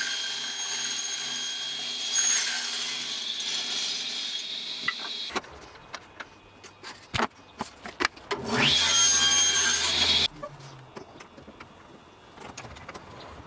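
Table saw running and ripping a softwood board with a steady high whine that stops abruptly about five seconds in. A few clicks and knocks follow, then the saw starts up again with a rising whine, runs briefly and cuts off about ten seconds in; light clicks after that.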